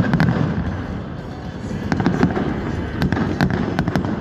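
Aerial fireworks bursting: a string of sharp bangs and crackles, about eight reports spread unevenly, over a low rumble.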